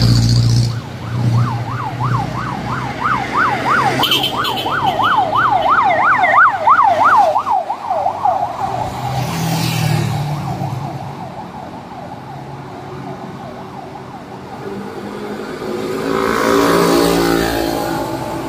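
Emergency vehicle siren yelping, a fast rising-and-falling wail about three times a second, that fades away after about eight seconds. Road traffic runs underneath, and a vehicle engine passes close near the end.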